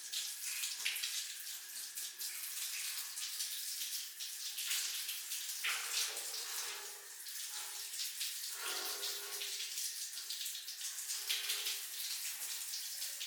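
Water running and splashing in a steady rush, changing in tone a few times as the flow shifts.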